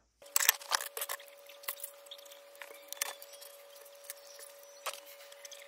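LEGO plastic pieces clicking and clattering as they are picked from the pile and pressed together by hand: a quick flurry of clicks in the first second or so, then scattered ones, over a steady faint hum.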